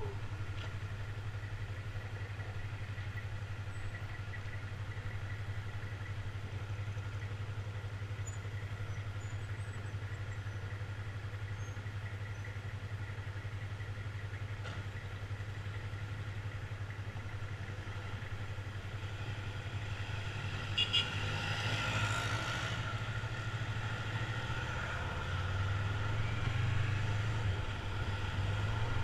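Yamaha MT-03's 321 cc parallel-twin engine running steadily at low revs while riding, a low even hum. A couple of short sharp clicks about two-thirds of the way through, and the engine grows louder near the end.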